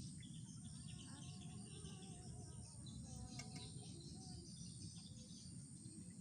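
Tropical forest ambience: a steady low rush of background noise, insects shrilling on one high note, and several birds calling with short chirps and whistles throughout.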